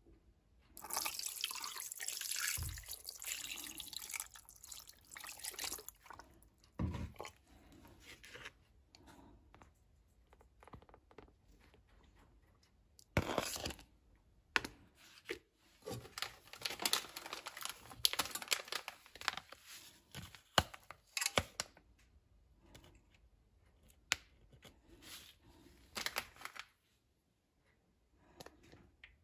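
Water poured into a stainless steel pressure-cooker pot over raw chicken pieces, splashing for several seconds. A second spell of pouring and splashing comes later, with a few knocks and clatters between.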